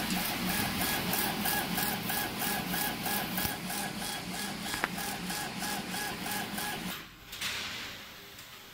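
CO2 laser engraving machine raster-engraving: the laser head shuttles back and forth on its gantry, driven by its motors in a fast, even rhythm of about four strokes a second, like a printer. There is one sharp click just before five seconds. The rhythm stops about seven seconds in, leaving a fainter steady hiss.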